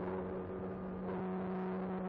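Electric motor and propeller of an Apprentice 15e RC trainer plane, a steady whirring hum with a shift in pitch about a second in as the throttle changes.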